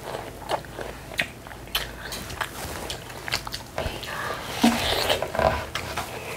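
Children biting into and chewing slices of watermelon close to a clip-on microphone: a string of short, sharp mouth clicks, thickest from about four to five and a half seconds in.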